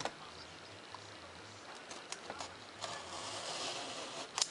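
Craft knife blade drawn along a ruler through paper-faced foam board: a faint scratchy hiss for about a second and a half in the second half, ending in a sharp click.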